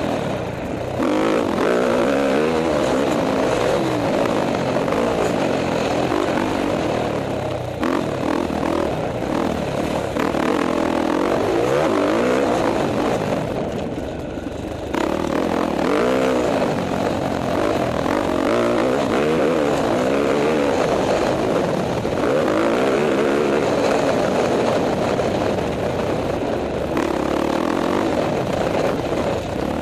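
KTM 450 XC-F four-stroke single-cylinder dirt bike engine under way on a motocross track, its pitch rising and falling with throttle and gear changes. The throttle is briefly rolled off about halfway through, then the engine picks up again.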